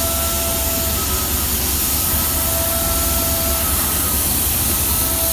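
Portable flange face serration machine running on a pipe flange, its hose-fed drive motor giving a loud steady hiss as the tool head turns around the flange face, with a faint whine that comes and goes.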